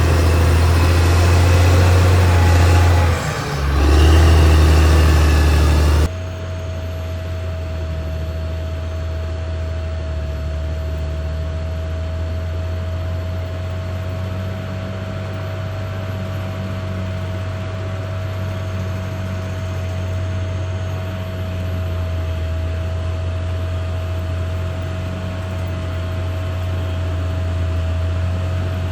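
Caterpillar D6R XL bulldozer's diesel engine running with a deep, steady drone. About six seconds in the sound changes abruptly to a quieter, duller drone with a steady whine over it.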